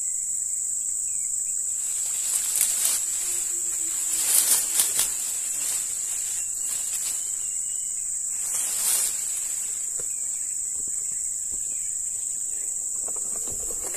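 A steady high-pitched insect drone. Short bursts of rustling or scraping come about two seconds in, a louder cluster around four to five seconds, and another around nine seconds.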